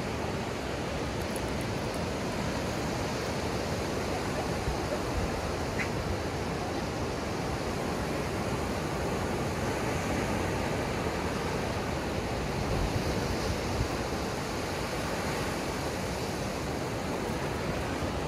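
Steady rush of ocean surf breaking along a sandy beach, with wind.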